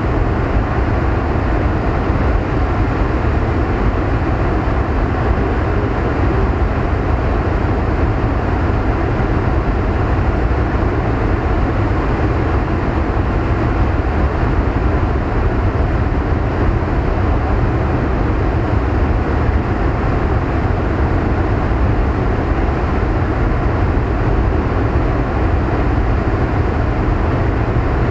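Steady low rumble of wind buffeting the microphone, over the rush of the fast-flowing river past the rocky bank.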